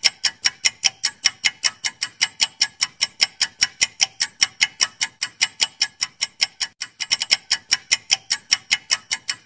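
Clock-ticking sound effect for a quiz countdown timer: rapid, even ticks, about five a second, with a brief stumble about seven seconds in.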